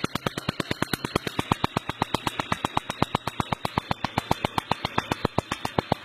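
Pulsed laser welder firing in a rapid, even train of sharp clicks, about eight a second.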